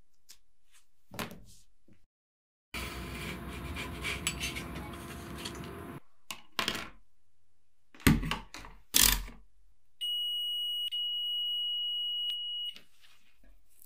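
A few seconds of scraping and rattling as transformer parts are handled, then two loud knocks on the wooden table. Then a digital multimeter's continuity beeper sounds one steady high beep for nearly three seconds while its probes are on the transformer winding leads, which signals the winding is unbroken.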